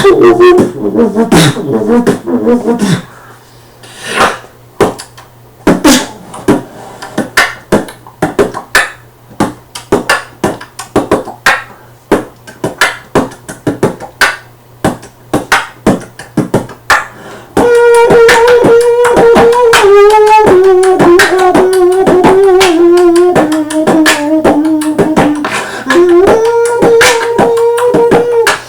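Human beatboxing by a single performer: mouth clicks and kick-and-snare beats, with a gliding pitched vocal sound for the first few seconds. A bit past halfway a hummed tone is held over the beat, stepping down in pitch and climbing back near the end.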